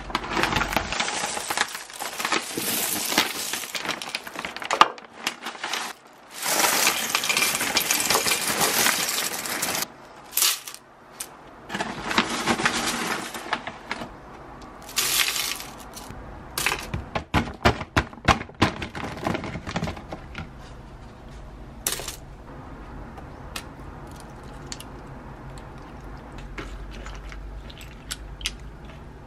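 Dry cornflakes poured into a wooden bowl, a dry rattling rustle in long bursts through the first ten seconds and shorter pours after. A scatter of sharp taps and clicks follows around the middle, then it goes quieter.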